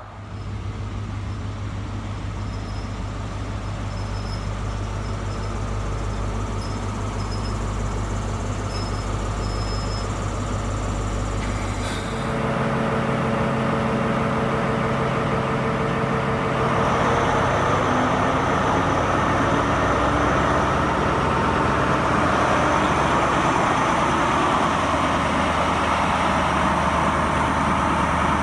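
Class 43 HST power car's diesel engine idling with a steady low hum. About twelve seconds in the note changes abruptly to a higher, louder one and rises again a few seconds later as the power car pulls away under power.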